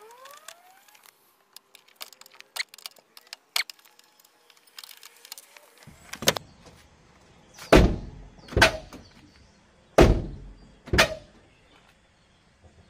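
Light metallic clicks and taps at a car door's hinge bolts, then the car door being swung and shut with five loud clunks. The two heaviest thuds come about two seconds apart. The door is being tested after the owner tried to adjust it because he believes it has sagged and rubs when it opens.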